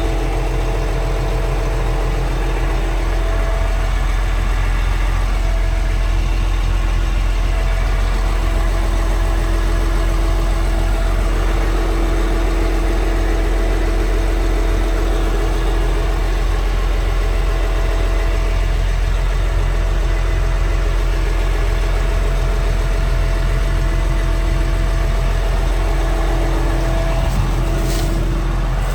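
Diesel engine of a Liebherr PR 756 crawler dozer running steadily, a low rumble with a few steady whining tones above it.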